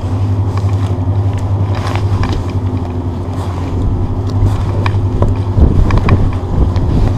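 A steady low rumble runs throughout. Over it come scattered light clicks and knocks as a braided fish-stringer rope and its metal snap clip are handled.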